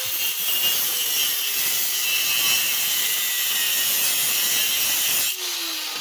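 Angle grinder with a cutting wheel cutting into the steel frame of a small microwave motor, a loud steady hissing grind. About five seconds in it is switched off, and its whine falls as the wheel winds down.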